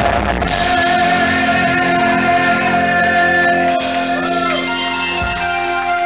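Live rock band playing electric guitar, drums and vocals through a club PA, recorded from the crowd on a camera with muffled, poor sound. The dense playing thins out about a second in, leaving long held notes.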